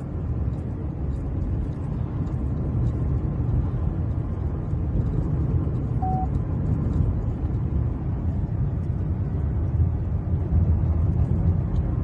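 Steady low rumble of road and engine noise inside a 2012 Chevrolet Cruze's cabin while driving, with one short beep about halfway through.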